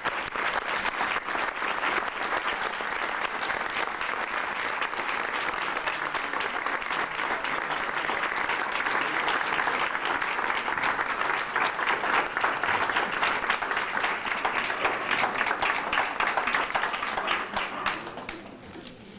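Crowd applauding: many hands clapping steadily, then thinning and dying away near the end.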